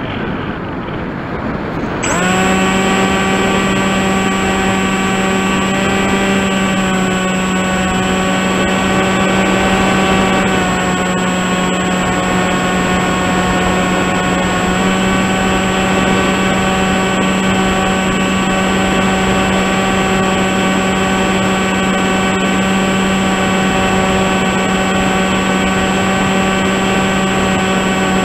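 Electric motor and propeller of a Tek Sumo RC flying wing, heard from its onboard camera. The motor is off for the first two seconds, leaving only rushing air, then comes back on sharply about two seconds in and runs as a steady whine with a strong hum. It dips slightly in pitch near the middle, then holds steady again.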